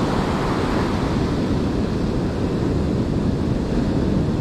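Ocean surf breaking and washing up a sandy beach, a steady rushing wash, with wind rumbling on the microphone.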